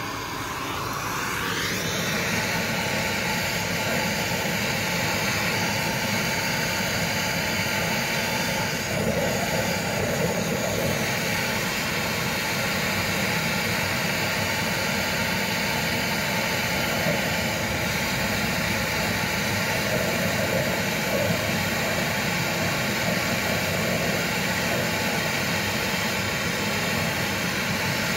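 Brazing torch flame running with a steady rushing hiss, lit with a sharp click at the start and building over the first couple of seconds, as it heats a copper joint on a refrigerator's filter drier.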